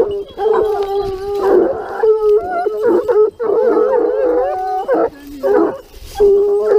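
A pack of Gascon Saintongeois hounds baying together, several long, wavering howls overlapping, with a short lull about five seconds in. The hounds are giving tongue as they work the scent of a wild boar.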